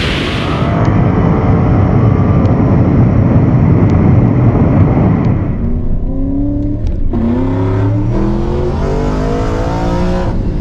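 Tesla Model S Plaid at racing speed down a drag strip: a loud, even rush of wind and road noise. About five seconds in it switches to the quieter sound inside the cabin, where several tones climb slowly in pitch as the car accelerates, breaking off briefly twice.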